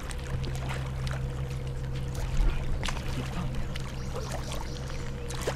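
Water splashing and trickling in shallow water, with a steady low hum underneath.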